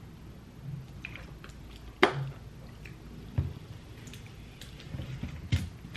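Swallowing from a plastic drink bottle, then the bottle handled on a table: a sharp knock about two seconds in, a duller thump, and a scatter of small plastic clicks and taps near the end.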